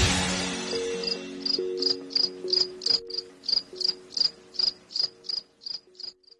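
Cricket-like insect chirps, short and high, about three a second, over soft held notes as a song's music fades out.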